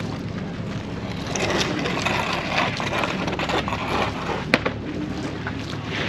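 A passenger boat's engine running steadily with a low rumble under general wind and hull noise, and a single sharp click about four and a half seconds in.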